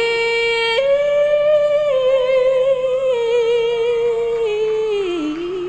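A solo female voice holds a long sung note, stepping up in pitch about a second in, then sliding down near the end and settling into vibrato.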